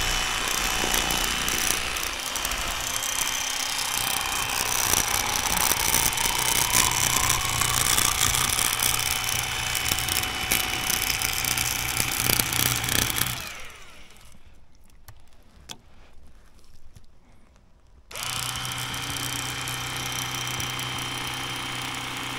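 Electric fillet knife running steadily as it cuts a fillet from a largemouth bass. It is switched off about two-thirds of the way through, leaving a few small clicks, and started again about four seconds later.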